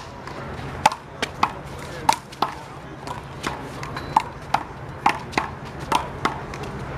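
Handball rally: the rubber big blue ball is slapped by players' hands and bounces off the wall and ground, making a string of sharp smacks about two a second, irregularly spaced, over a faint steady low hum.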